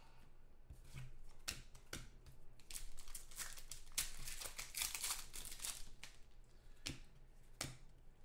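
Foil wrapper of a Certified football card pack being torn open and crinkled by hand, loudest in the middle, with a few sharp clicks of cards and wrapper before and after.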